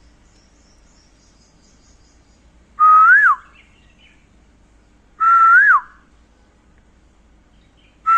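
Asian koel (koyal) calling: loud, clear whistled 'ku-oo' notes, each held and then rising and dropping sharply, repeated about every two and a half seconds. Faint high chirps of a small bird come in the first couple of seconds.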